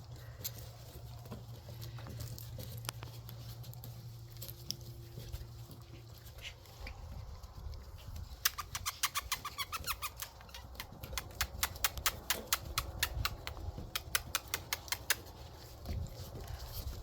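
Rapid clicking of Shiba Inu puppies' claws as they scamper about at play. The quick run of clicks sets in about halfway through and lasts several seconds, over a low steady hum.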